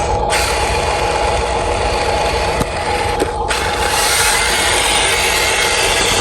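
Radio-controlled toy construction vehicle's electric motors and plastic gearboxes whirring steadily with a constant hum; the higher whir cuts out briefly twice, near the start and a little past the middle.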